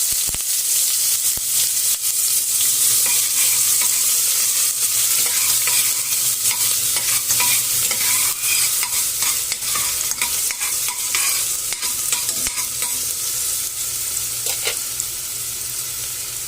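Onions sizzling in hot oil in a pan, stirred with a utensil that scrapes and clicks against the pan. The frying hiss is steady, and the stirring strikes come thick and often.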